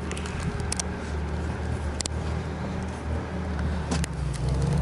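Compact track loader's engine idling steadily, with a few sharp clicks and knocks as someone climbs up over the fork attachment into the cab.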